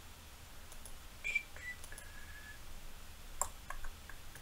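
A short electronic beep falling in three steps about a second in, then a few sharp clicks of a computer mouse near the end, as camera focus settings are changed on a computer.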